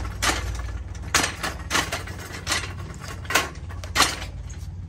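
Walking with a pushed shopping cart: a run of sharp, uneven clacks, roughly one every half-second to second, over a steady low rumble.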